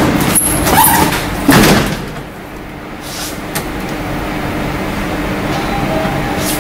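A door is pushed open and swings shut, with several knocks and a bang about a second and a half in, followed by a steady low hum.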